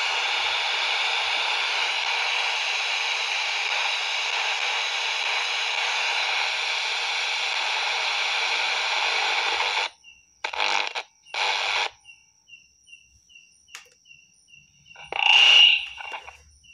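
FM radio static: a steady hiss from a handheld receiver tuned to an empty frequency. It cuts off abruptly about ten seconds in, as an FM receiver falls quiet when it catches a transmitter's carrier. After that come two short bursts of hiss, a faint chirp repeating about three times a second, and a brief louder squeal near the end.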